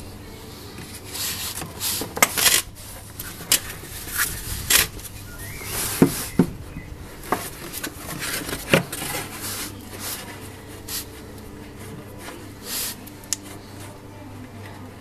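Hands handling a plastic motor-oil jug and its screw cap: irregular clicks, knocks and rubbing, several sharp clicks standing out in the middle.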